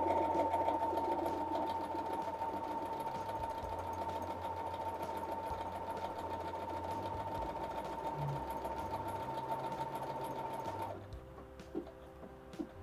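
Brother PS300T computerized sewing machine, run from its start button, stitching out a lettered word from memory: a steady motor whine with the needle's rapid stitching, which stops abruptly about eleven seconds in. A few faint clicks follow near the end.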